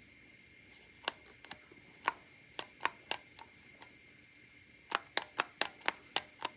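A series of sharp clicks, a few scattered at first, then a quick run of about seven at roughly five a second near the end, over a faint steady high-pitched tone.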